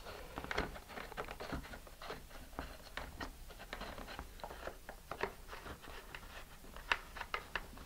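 Faint, irregular small clicks, taps and rubbing from hands fitting a strap-on booster pod onto a model rocket's body tube, with one sharper click about a second before the end.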